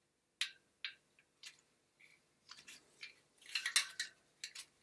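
Irregular sharp clicks of a plastic cover against the spokes and hub of a Thule Chariot trailer wheel as it is lined up with the spokes and pressed into place, with a quicker cluster of clicks about three and a half seconds in.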